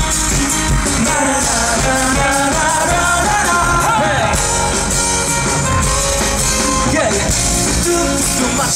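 Live rock band music played loud through a sound system, with a lead melody line bending up and down in pitch over the band.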